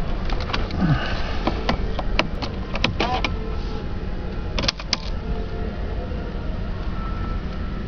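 Scattered sharp clicks of dashboard controls and handling inside a car's cabin, over a steady low rumble. A quick group of louder clicks comes about five seconds in.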